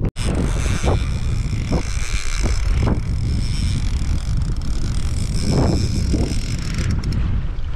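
Wind buffeting the microphone in a steady low rumble, with waves slapping and lapping against a kayak on choppy open water; a few louder splashes stand out, about a second apart early on and again past the middle.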